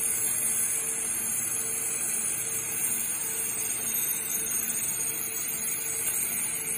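Abrasive waterjet cutting head of a ONEJET50-G3025 machine cutting through a slab: a steady, loud hiss of the high-pressure jet, with a faint pulsing hum underneath.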